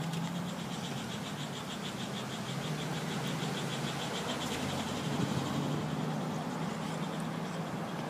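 Road and engine noise heard from inside a moving car, with a steady low hum and a fast, high-pitched pulsing running through it.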